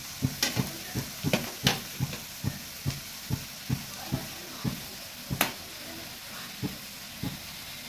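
Perforated metal spatula stirring and scraping against a metal kadhai, about two or three strokes a second with a few louder clinks, while sliced almonds, cashews and pistachios sizzle in hot ghee.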